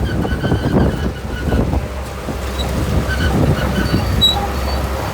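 Shantui crawler bulldozer at work: the diesel engine runs under steady load while the tracks clank, with short high squeaks from the track running gear now and then.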